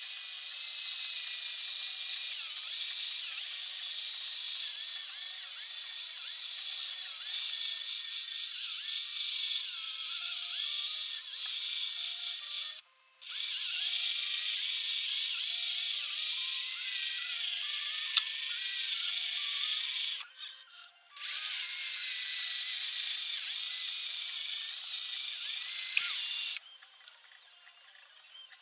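Loud, high-pitched mechanical grinding from a small tool working on the guitar. It runs continuously, stops briefly twice, and cuts off suddenly near the end.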